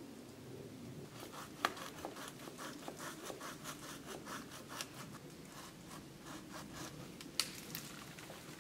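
A hand saw cutting through a linden branch, in quick, even back-and-forth strokes, about four a second. Two sharper clicks stand out, one early and one near the end.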